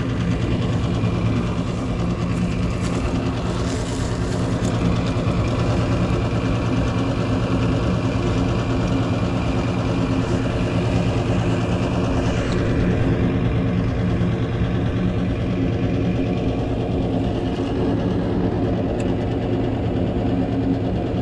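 Gas furnace running, its motors giving a steady, even hum.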